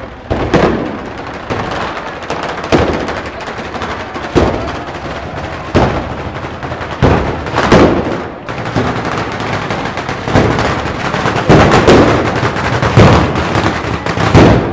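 Batteria of ground firecrackers going off: a dense, continuous crackle with heavier bangs every second or two, getting louder toward the end.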